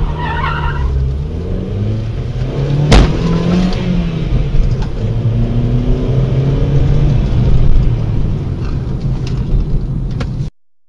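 Car engine pulling away and accelerating, its pitch climbing and dropping in steps as it changes gear, with one sharp knock about three seconds in. The sound cuts off suddenly near the end.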